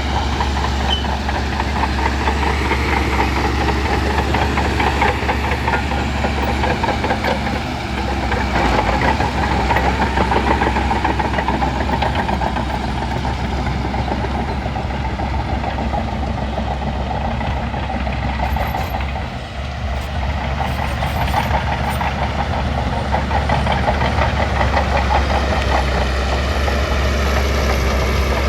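Shantui crawler bulldozer's diesel engine running steadily while the machine works, easing briefly about two-thirds of the way through.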